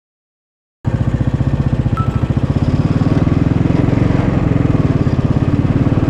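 Yamaha SR500's single-cylinder four-stroke engine running while the bike rides along, a steady rapid train of firing pulses. It starts abruptly less than a second in, after near silence.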